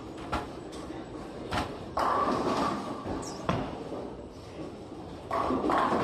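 Bowling alley din: sharp knocks of balls and pins, with two sudden louder spells of crashing pins, one about two seconds in and one near the end, each lasting about a second.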